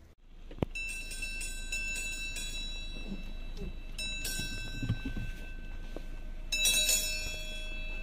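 Bells on a horse-drawn carriage (phaeton) ringing in three bursts as it moves along the snowy road.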